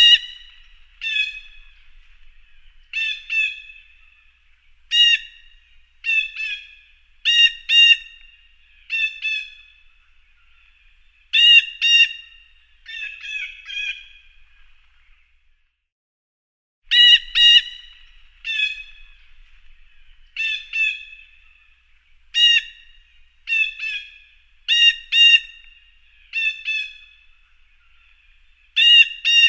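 A jay giving its harsh screeching calls, short and repeated about once a second, often in quick pairs. The calls pause for about two seconds midway, then start again.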